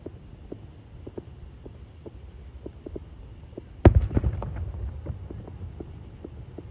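A firework shell bursting in the sky: one loud boom about four seconds in, followed by a quick run of smaller crackling bangs and a low rumble that fades over about a second.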